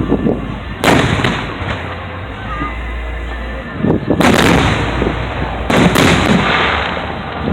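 Aerial fireworks shells bursting: a loud bang about a second in, another about four seconds in, then a quick run of bangs and crackle a little later.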